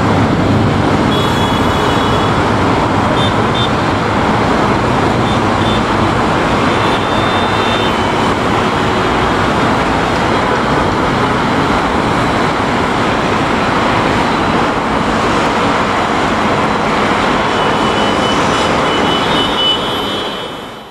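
Boeing 747-400's four jet engines making a steady, loud rumble as the airliner climbs away after takeoff. The noise drops away in the last second.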